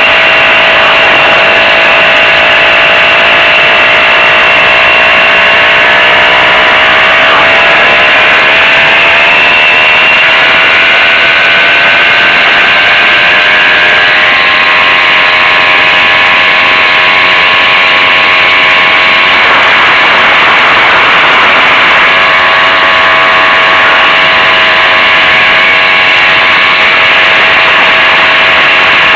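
Zündapp M50 Bergsteiger moped's small two-stroke single-cylinder engine running loud and steady under way, its pitch climbing between about six and nine seconds in and briefly breaking up around twenty seconds in.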